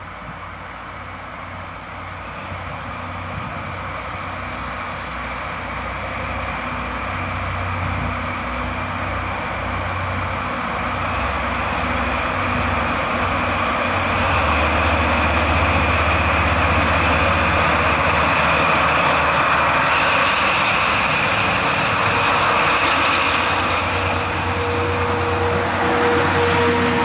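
JNR/JR DD51 diesel-hydraulic locomotive pulling a departing train, its diesel engines working under load and growing steadily louder as it approaches and passes, a steady high whine above the low engine drone. Near the end the coaches roll past.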